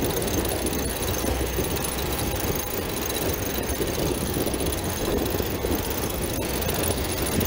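Steady rushing of wind and water on the deck of a trimaran under sail, with a constant deep rumble underneath.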